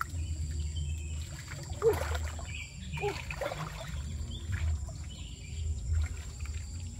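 Water trickling faintly over a low, steady rumble, with a few short faint sounds around two and three seconds in.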